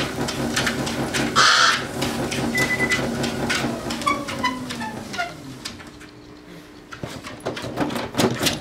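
Motorized treadmill running with a steady motor hum under a dog's quick paw steps on the belt, with a short harsh sound about a second and a half in and a brief beep. About halfway the motor winds down with a falling whine and stops, and paw steps follow near the end.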